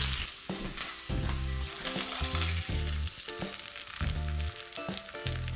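Halibut fillet sizzling in hot butter in a frying pan, loud at first and dropping sharply about a quarter second in as the pan comes off the heat, then a fainter crackle and spitting. Background music with a steady beat runs underneath.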